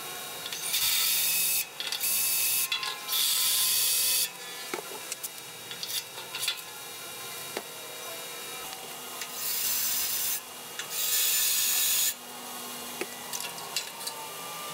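Power drill bit cutting the heads off the rivets that hold a sheet-metal switch box to the fan housing, in five short bursts: three close together at the start and two more about nine seconds in. Small clicks and taps come between the bursts.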